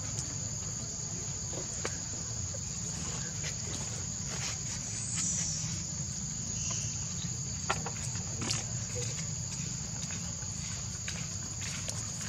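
Steady, high-pitched insect chorus, with a low steady rumble underneath and scattered faint clicks, a couple of them sharper about two-thirds of the way through.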